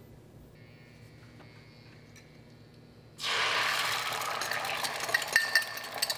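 Beaten eggs poured into hot coconut oil in a stainless steel pan, sizzling loudly as they hit the oil about three seconds in, while a fork clinks against the cup and the pan scraping the last of the eggs out.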